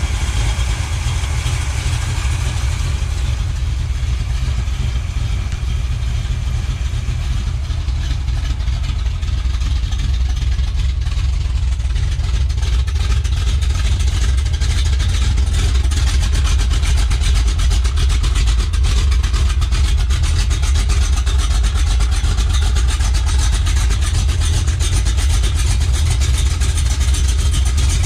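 Pontiac 455 V8 of a 1967 GTO, fitted with a Crower cam and 3-inch exhaust, idling steadily. It gets a little louder from about halfway through, with the exhaust heard close up under the car.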